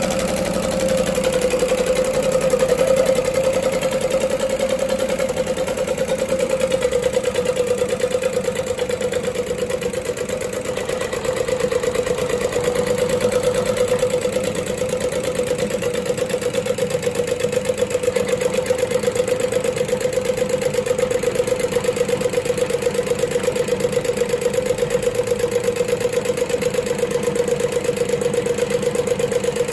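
Güldner Lanova GL7 diesel engine of an 80-year-old prototype tractor running steadily at idle after being revived from long standing. It has an even, rapid beat over a steady hum.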